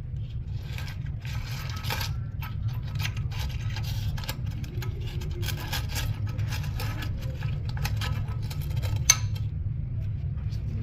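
Irregular scraping and clinking of hard objects handled against each other, with a sharp click about nine seconds in, over a steady low hum.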